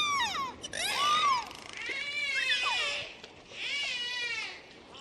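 A marine mammal's high-pitched cries: four wavering, bleat-like calls, each rising and then falling in pitch.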